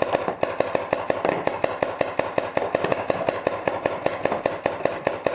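Paintball marker firing in rapid succession, a steady string of sharp pops at about six to seven shots a second.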